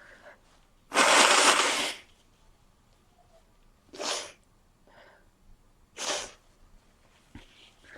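A person with a head cold sneezing: one loud sneeze about a second in, followed by two shorter, quieter breathy bursts about two and four seconds later.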